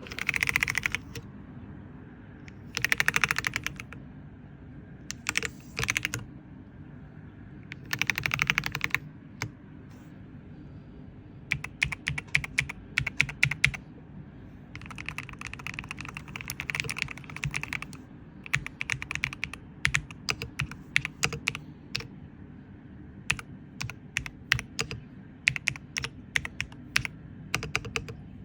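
Typing on an IQUNIX EZ63 mechanical keyboard with Gateron Jade Pro linear switches. Quick keystrokes come in runs: a few dense flurries of about a second each, then looser strings of separate clacks with short pauses between.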